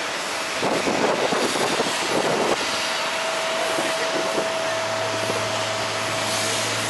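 Steady roar of jet aircraft engines with a thin whine. A louder rush of noise comes from about half a second to two and a half seconds in, and a low hum joins about two thirds of the way through.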